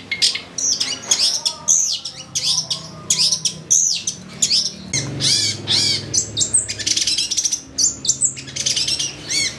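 Long-tailed shrike singing a fast, varied song of rapid sharp chattering notes and arched whistles, packed with mimicked calls of other birds.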